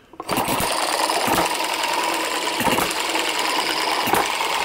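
Microcosm M90 model hit-and-miss engine starting up and running: a steady mechanical clatter broken by a firing hit about every second and a half, four hits in all. Its softer governor springs hold it to roughly 45 to 48 hits a minute.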